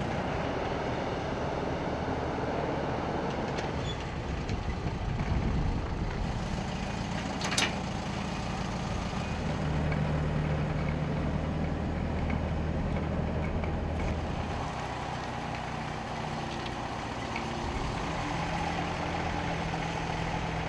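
Aircraft tow tractor's engine running steadily, its low hum changing pitch a few times, with one sharp click about seven and a half seconds in.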